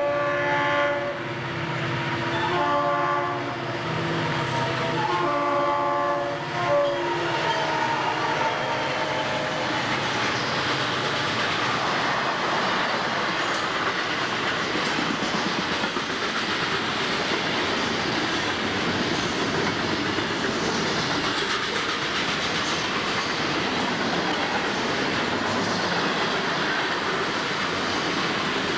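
Florida East Coast Railway freight locomotive's horn sounding about four long chord blasts, signalling for a grade crossing, the last one fading about nine seconds in. It is followed by the steady rumble of the freight cars' wheels rolling past on the rails.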